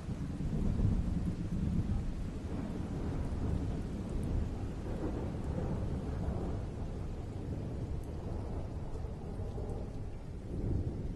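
Rolling thunder rumbling low and continuously over steady rain, swelling about a second in and again near the end.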